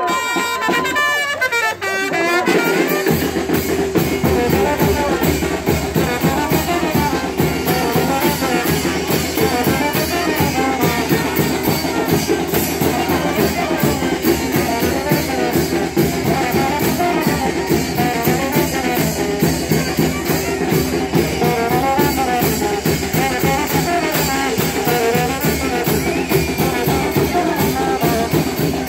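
A live brass band plays a lively chinelo dance tune: a brass melody over a steady, driving beat of bass drum, snare and cymbals. The drumming comes in strongly about three seconds in.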